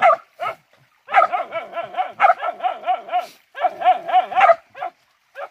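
Hunting dog yelping and barking excitedly in quick rapid runs: a few single yelps, then two long unbroken strings of yelps, then a couple more before it stops.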